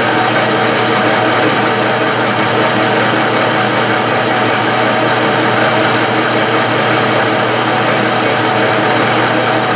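Metal lathe running at low speed, its chuck turning a 1957 Chevy steering-box sector shaft held in a steady rest. A steady machine hum over a hiss, with no change in speed.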